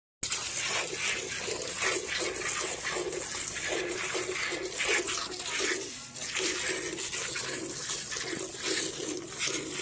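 Hand milking a cow into a steel pail: streams of milk squirt rhythmically, about three a second, from alternating teats and hiss and splash into the froth of milk already in the pail.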